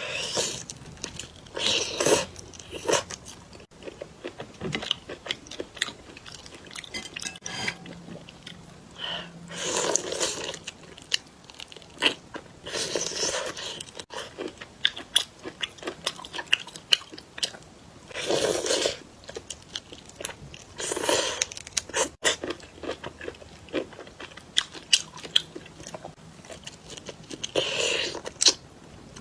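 Close-miked eating of crunchy shrimp: loud bursts of crunching every few seconds, with quieter chewing and small crackles in between.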